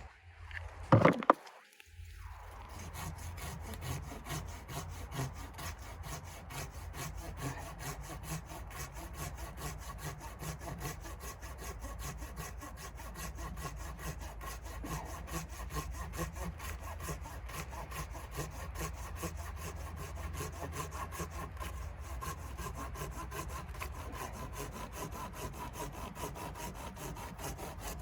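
Hand saw cutting through wood in steady, continuous strokes. A couple of sharp knocks come about a second in, before the sawing starts.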